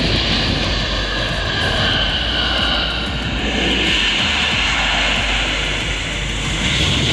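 Jet airliner engines running at takeoff power on the runway: a steady loud noise with a high whine that strengthens about three seconds in, over a low rumble of wind on the microphone.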